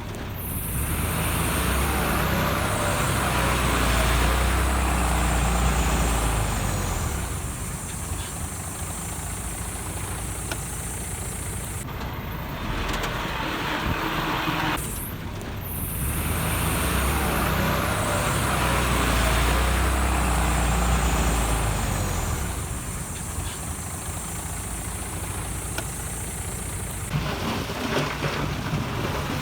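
Heavy diesel engine of earthmoving machinery running, swelling louder and easing off over several seconds, with sudden cuts about halfway through and again near the end.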